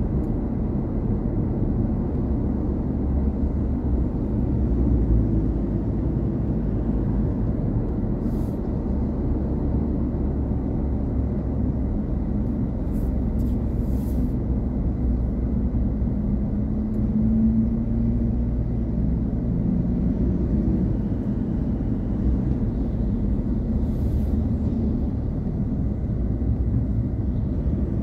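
Car driving on an open road, heard from inside the cabin: a steady low rumble of engine and tyres, with a short rising engine note a little past halfway.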